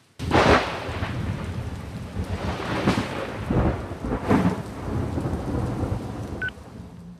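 Thunderstorm sound: rumbling thunder under a dense rain-like hiss. It starts suddenly and swells in several surges. A short high electronic beep sounds near the end.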